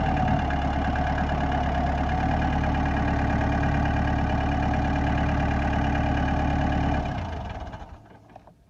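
Tractor engine running steadily at an even speed, then shut off about seven seconds in and winding down to a stop.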